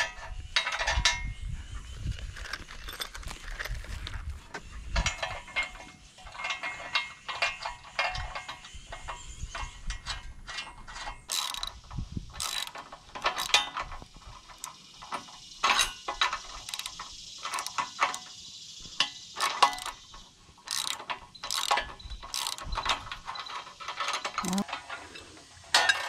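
Ratchet wrench clicking in runs with metal clinks, as bolts fastening a bunk to the sawmill's bed rails are tightened.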